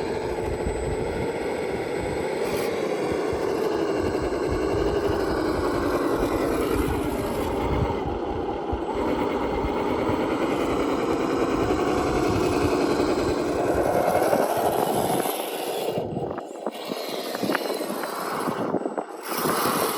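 Electric motor and gearbox of a radio-controlled rock crawler whining as it drives, the pitch wavering with the throttle. The whine climbs a little about two-thirds of the way through, then cuts in and out several times near the end.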